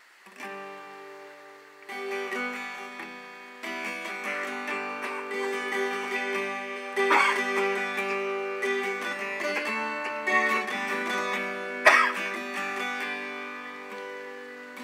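Acoustic guitar played solo, chords strummed and left ringing, with a new strum every second or few. A sharp knock about twelve seconds in is the loudest moment.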